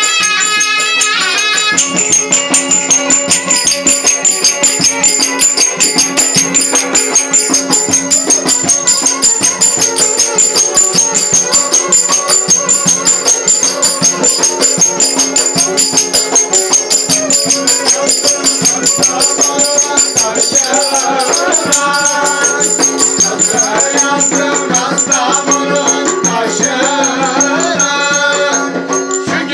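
Turkish folk dance music: a köçek dancer's hand clappers clatter in a fast, steady rhythm. A zurna plays the melody at the very start, and a kemane's bowed melody comes in over the clatter near the end.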